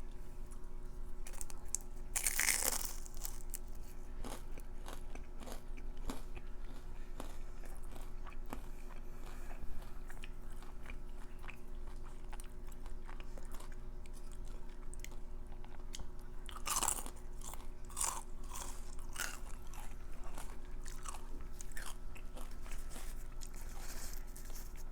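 Close-up crunching and chewing of deep-fried crab cream cheese wontons, with small crackles throughout and louder crunches about two and a half seconds in and again near seventeen seconds.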